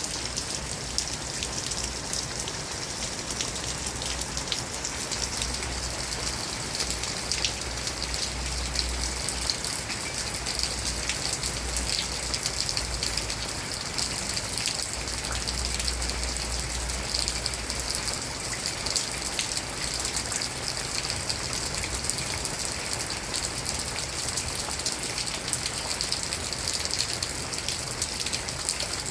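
Steady rain falling, an even hiss with many individual drops ticking on surfaces. A low rumble swells and fades twice.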